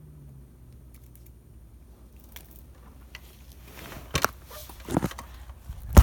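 Handling noise: a few rustles and sharp knocks in the last two seconds, the sharpest knock at the very end, over a faint low hum.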